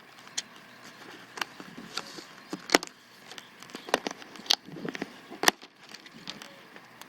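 Packaging being handled and opened: a series of sharp, irregular clicks and crackles over light rustling.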